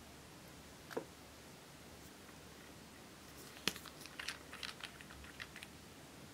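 Black cap of a yellow nail polish bottle being twisted open: a sharp click as it breaks loose, then a run of small ticks and scrapes for about two seconds. A single faint tap comes about a second in.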